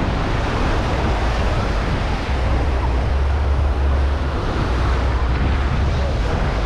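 Wind buffeting the microphone in a low, uneven rumble over a steady wash of ocean surf.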